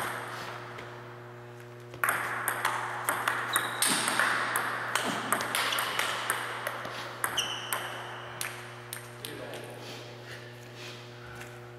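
Table tennis rally: the celluloid ball clicking off paddles and table in quick alternation, about two hits a second, starting about two seconds in and ending near the three-quarter mark when the point is over.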